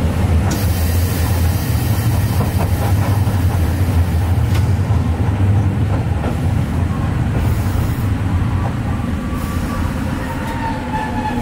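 Hankai Tramway Mo 603 streetcar running along the track, heard from inside the car: a steady low rumble of motors and wheels with a few sharp clicks from the rails. Near the end a faint whine comes in and the rumble eases off as the tram slows for the next stop.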